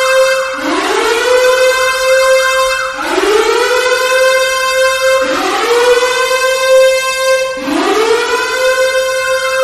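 Civil-defence (nuclear attack warning) siren wailing loudly: its pitch sweeps up from low to a steady high note, and a fresh upward sweep begins about every two and a half seconds while the high note holds on, four times here.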